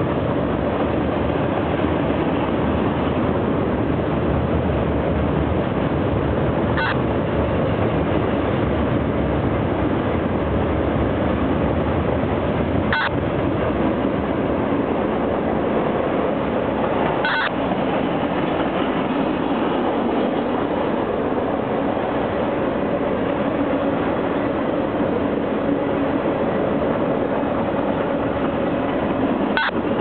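Mixed freight train's cars rolling across a trestle bridge, a steady rumble broken by a few brief sharp clicks.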